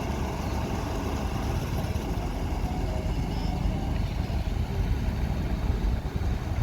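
Heavy truck engine running steadily at a low idle-like rumble.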